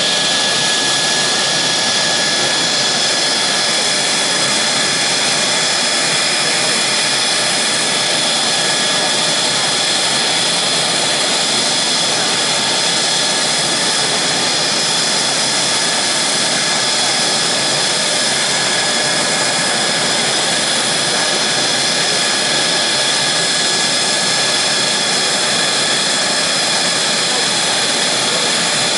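Mitsubishi F-2 fighter's single F110-GE-129 turbofan running on the ground during an engine run-up: a loud, steady rush with a high whine over it.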